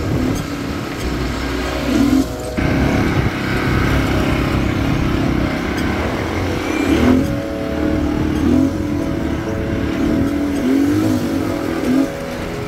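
Off-road buggy engine running as it is driven along a rough dirt track, the revs rising and falling again and again.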